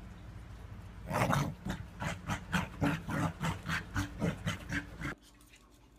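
Corgi vocalising in a rapid string of short throaty sounds, about four a second, starting about a second in and breaking off suddenly near the end.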